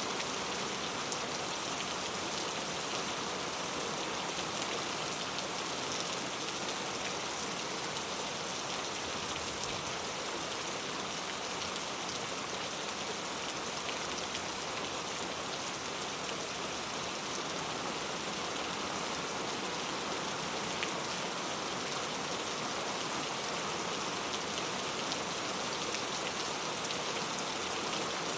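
Heavy rain falling steadily, an even hiss of rain on a surface with scattered individual drops.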